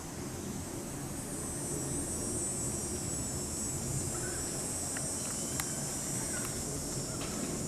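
Steady high-pitched chorus of crickets over a continuous low rumble, with a few faint ticks.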